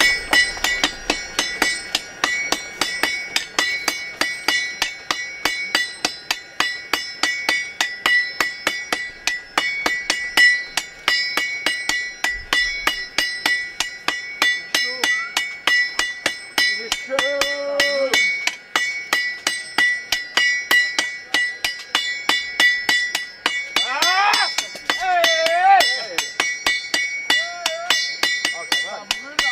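Four blacksmiths' sledgehammers striking hot iron on an anvil in turn, a rapid, even rhythm of several blows a second, with the anvil ringing steadily under the blows.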